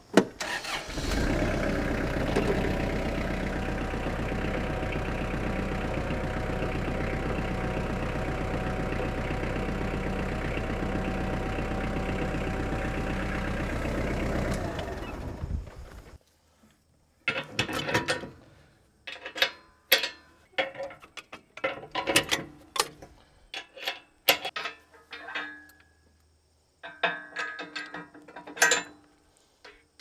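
A tractor engine starts and runs steadily for about fourteen seconds, then shuts off. It is followed by a run of separate sharp metal clanks and knocks as the three-point hitch of the wood chipper is coupled to the tractor.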